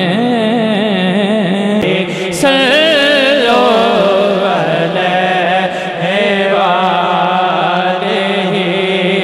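A man singing a Punjabi kalam into a microphone through a PA, drawing out a long, wavering, ornamented vocal line with no clear words. A steady low held tone sounds underneath.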